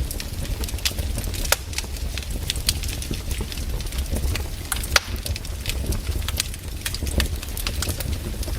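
Firewood burning, with irregular sharp crackles and pops over a low steady rumble; one pop about five seconds in is louder than the rest.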